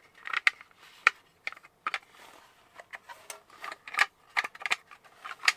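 Irregular light clicks and taps of hard model-kit parts knocking together as one part is worked against the small locating tabs on the back section of a Dalek model.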